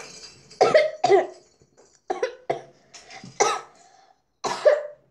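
A child coughing, several short coughs in a row, some with a little voice in them.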